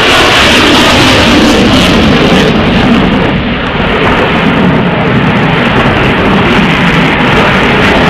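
Jet fighter's engines running loud overhead in an aerobatic display, a steady wall of jet noise that dips briefly a little over three seconds in.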